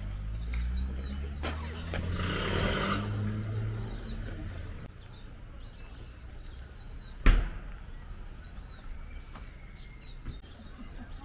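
A car's engine running low and moving close by during the first few seconds, with small birds chirping again and again throughout. One sharp knock about seven seconds in is the loudest sound.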